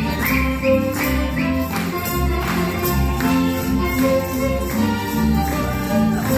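Folk band playing a lively Lemko czardasz dance tune with a steady pulsing bass beat.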